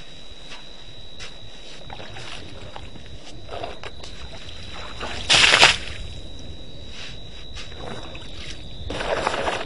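African elephant drinking at a waterhole: two gushes of water as it pours trunkfuls, a short loud one about five seconds in and another near the end.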